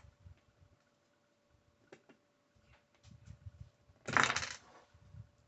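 Small plastic LEGO bricks clicking and shuffling as pieces are handled and pressed together, with a short louder noisy burst about four seconds in.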